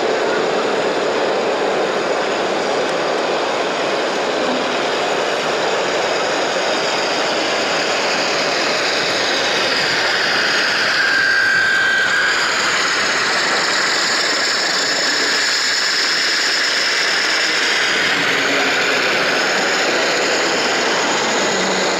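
Electric drive motors of a large radio-controlled model mobile crane running with a steady whirr, their whine sliding down and back up in pitch around the middle, with a brief high tone shortly before.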